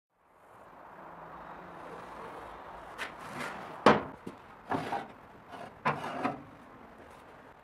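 Steel wire cooking grate being set down and slid into a barbecue built from a water-boiler tank, heard as a handful of knocks and scrapes, the loudest about four seconds in.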